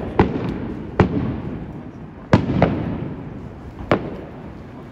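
Aerial firework shells bursting: about five sharp bangs at irregular spacing, two of them close together in the middle, each trailing off in a rolling echo.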